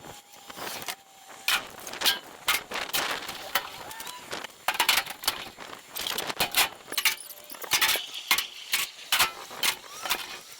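Scrap metal being loaded by hand: pieces clanking and banging against each other in an irregular run of sharp metallic impacts, some ringing briefly.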